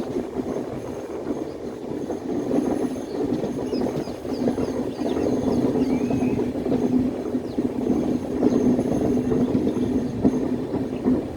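Express passenger train running along a curve in the track: a steady rumble of wheels on rails with rapid clicking, growing a little louder about halfway through.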